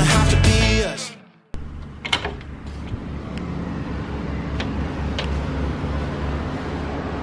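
Pop background music fading out in the first second and a half, then a steady low rumble with a few faint light clicks.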